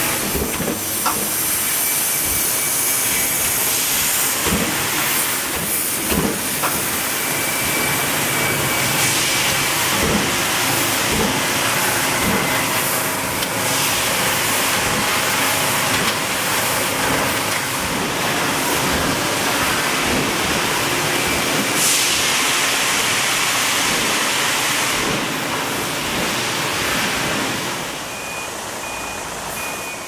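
Steady factory machinery noise: a constant hiss with scattered clacks and knocks. Near the end it gives way to a forklift's reversing alarm, a high beep repeating at an even pace.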